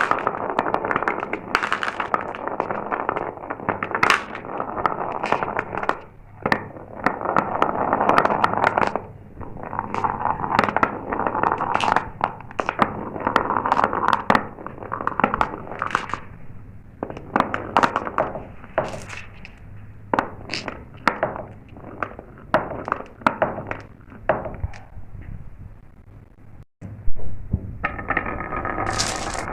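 Glass marbles rolling down a marble-run track: a continuous rolling rattle, with frequent sharp clicks as the marbles drop and strike the track. Near the end the sound breaks off briefly and comes back with a few ringing tones.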